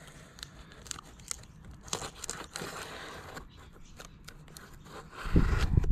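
A knife slicing through the packing tape and cardboard of a taped parcel box, in a run of short, faint, scratchy cuts and rips. Near the end a much louder low rumbling and knocking sets in.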